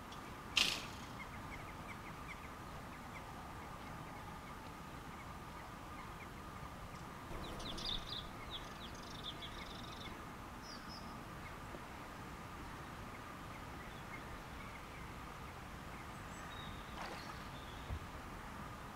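Quiet open-air ambience with birds calling: a quick cluster of high calls about eight seconds in and a few scattered calls later. A sharp click near the start is the loudest sound, and a faint steady high tone runs underneath.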